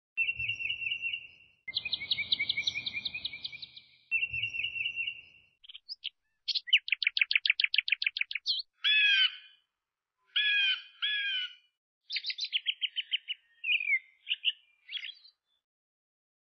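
Birdsong: a string of short, high-pitched trills and chirps of differing patterns, each phrase stopping cleanly with silence between them.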